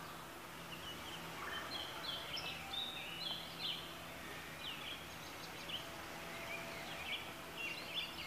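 Several birds chirping and singing, many short calls scattered throughout, over a faint steady low hum.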